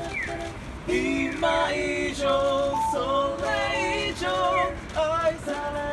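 Mixed a cappella group of five, men's and women's voices, singing a moody ballad in close harmony.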